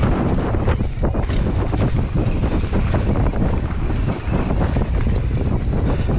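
Heavy wind buffeting the microphone of a camera on a moving mountain bike, over a steady low rumble with frequent small knocks and rattles from the bike rolling over rough trail.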